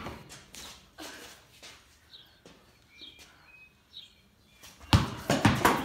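A basketball bounce at the start, then a quiet stretch with a few short, high bird chirps. From about five seconds in come loud thuds and scuffing from the basketball and players' feet.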